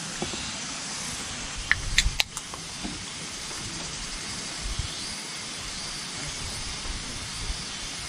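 An aluminium beer can's pull tab clicked open, a short cluster of sharp clicks about two seconds in, over a steady hiss.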